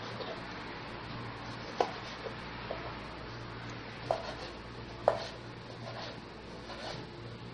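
Knife cutting malta oranges on a cutting board: a handful of sharp, irregular knocks of the blade reaching the board, the loudest about five seconds in, over a steady low hum.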